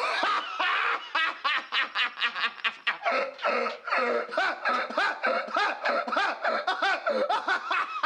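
A man laughing hysterically, a long unbroken run of loud ha's, several a second.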